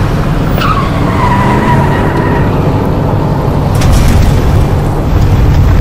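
A car driven hard, its engine running loud and low. A tyre squeal starts about half a second in, slides down in pitch and lasts a couple of seconds. About four seconds in comes a sudden burst of rough noise as the car swerves off the road onto dirt.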